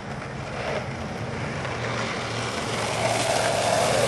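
Skateboard wheels rolling over rough asphalt, a steady rumbling rush that grows louder as the rider approaches, strongest near the end.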